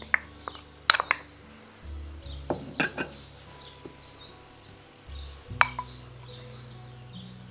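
Small glass prep bowls clinking against a large mixing bowl as chopped vegetables are tipped into a pasta salad: a handful of sharp clinks, the loudest about three quarters of the way through.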